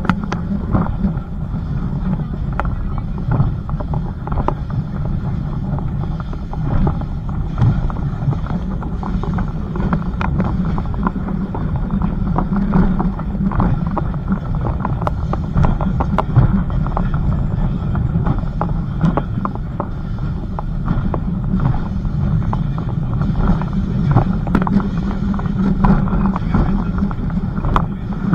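Heritage train running along the line: a steady low rumble with scattered clicks and knocks from the running gear, and wind on the microphone.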